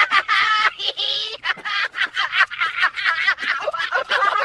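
Parrot laughing in a high-pitched cackle: a couple of longer calls, then a rapid string of short cackles.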